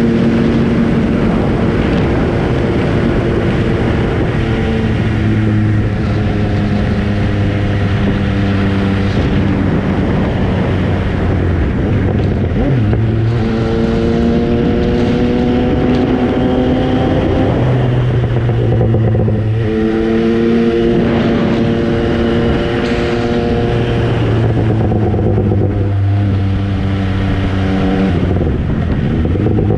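MV Agusta Brutale 800's three-cylinder engine running under way, its note holding steady at first, then climbing in pitch and dropping back several times as the rider accelerates and changes gear.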